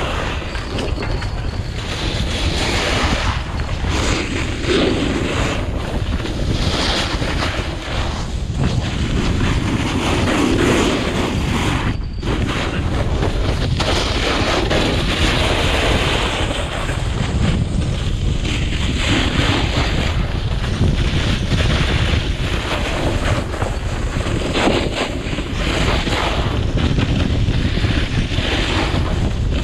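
Wind rushing over a handheld camera's microphone during a snowboard descent, with the board's edges scraping and hissing over packed snow, the scraping swelling and easing as he turns.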